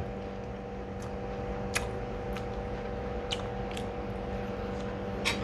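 A steady hum from a room appliance, with a few faint, sharp clicks from someone eating.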